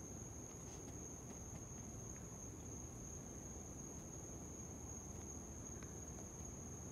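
A chorus of night insects keeping up one unbroken, high-pitched trill, over a faint low background hiss.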